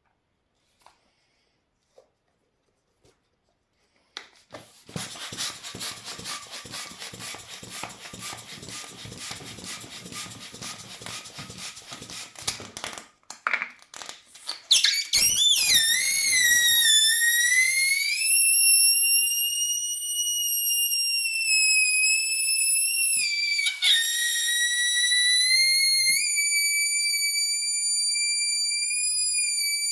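A few faint clicks, then several seconds of rough hissing and rustling. About fifteen seconds in, a rubber balloon starts squealing as air escapes through its stretched neck: a loud, high whistle that wavers in pitch and keeps going.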